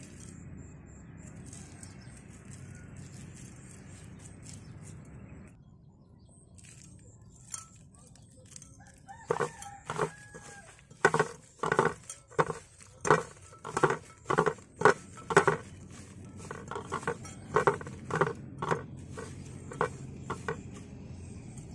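A chicken clucking in a long rhythmic series of short, loud calls, about two a second, from about nine seconds in until near the end. Before that there is a steady low background noise that cuts off abruptly about five seconds in.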